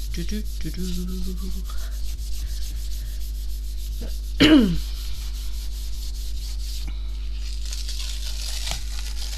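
Hands rubbing and smoothing a sheet of paper pressed onto a gel printing plate, a steady dry rubbing, to lift a print of the powder colours; near the end the paper is peeled up off the plate. A brief falling-pitched sound, the loudest moment, comes about four and a half seconds in.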